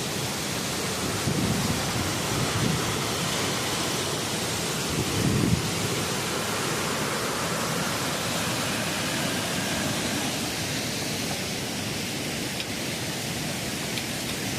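Steady rushing of water pouring out below a dam, with wind gusts rumbling on the microphone now and then, most strongly about five seconds in.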